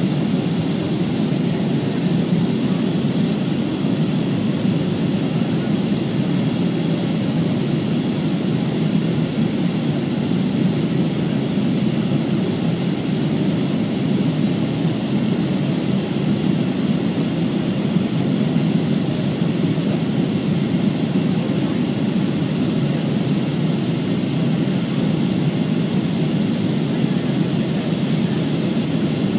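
Steady, low cabin drone of a Boeing 737-300's CFM56 turbofan engines and the airflow over the airframe, heard from a seat beside the engine during the descent to land.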